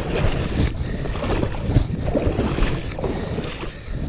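Wind buffeting the microphone in uneven gusts: a low rumbling noise with sharper puffs every fraction of a second.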